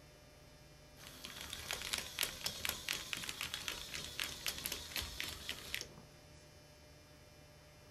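Small tracked robot driving forward: its gear motors and tracks make a rapid clattering of clicks that starts about a second in and stops abruptly after about five seconds.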